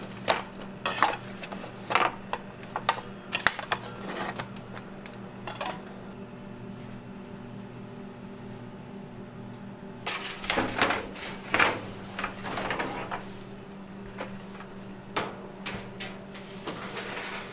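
A metal spatula scraping and clinking against dark steel Detroit-style pizza pans as the crisp baked crust edges are loosened, then steel pans and a rack clattering, under a steady low hum.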